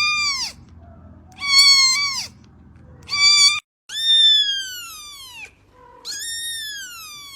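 Kittens meowing: three short, high meows, then, after a brief break, two longer meows that slide down in pitch.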